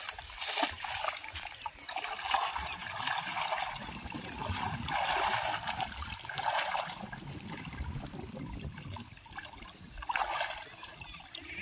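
Shallow canal water splashing in irregular bursts, with trickling and dripping in between, as it is stirred by someone wading in it.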